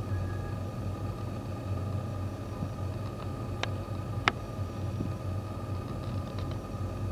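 Steady low room hum with a faint high whine, and two sharp clicks a little past halfway.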